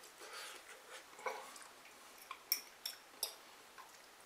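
Faint eating sounds: a metal utensil clicking and scraping against a bowl, with about five light, sharp clicks in the second half, and soft mouth noise from chewing a bite of food.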